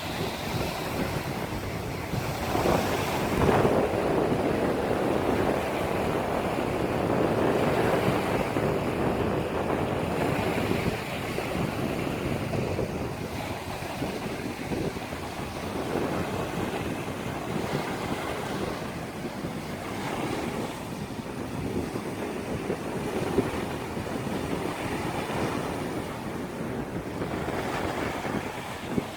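Small sea waves washing in, a steady rush that swells and eases, loudest a few seconds in and again near the middle.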